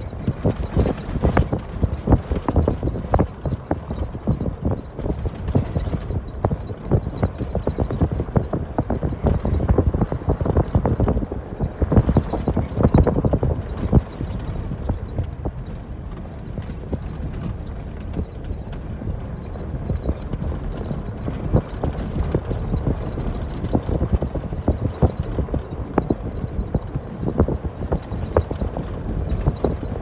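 A vehicle driving on a rough dirt road, heard from inside the cab: a steady low rumble with constant irregular knocks and rattles as it bounces over the uneven surface.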